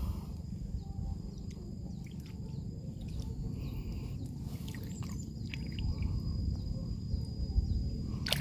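Outdoor waterside ambience: a low steady rumble with two faint, steady high-pitched tones from birds or insects above it and a few small scattered clicks.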